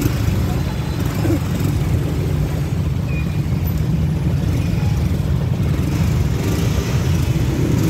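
Traffic jam of motorcycles and cars, their engines idling and creeping forward in a steady low rumble.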